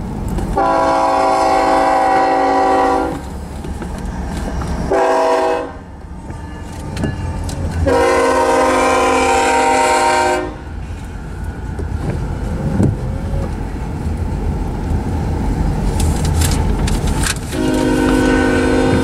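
Diesel freight locomotive's multi-chime air horn blowing a long blast, a short one, then another long one, the pattern of a grade-crossing warning, over the low rumble of the passing intermodal train. After the locomotives pass, the steady rumble of double-stack container cars rolling by continues, and the horn sounds once more near the end.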